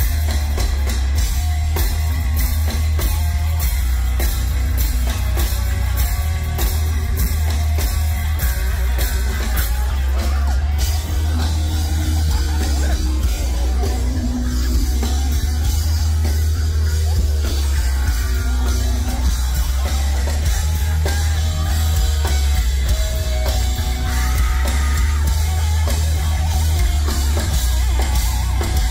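Heavy metal band playing live: a pounding drum kit and distorted electric guitars over heavy bass, with some vocals.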